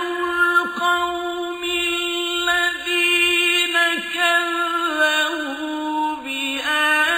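A male reciter chanting the Quran in a slow, melodic style: one long drawn-out phrase held on a steady pitch with small ornamental turns, dipping briefly about six seconds in and then rising again.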